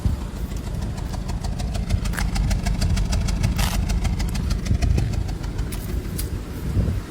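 A car engine running, with a steady low rumble and a quick run of sharp ticks and rattles over the middle few seconds.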